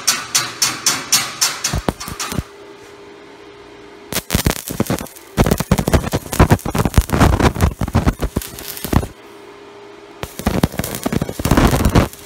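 Electric arc welding on steel square tube: the arc crackles and sputters in two long runs, the first from about four to nine seconds in, the second near the end. Before them, a quick run of sharp, even ticks, about four a second, for the first two seconds.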